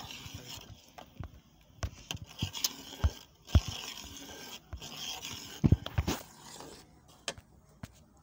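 Scraping and irregular knocks of a metal cooking pot and utensils being handled.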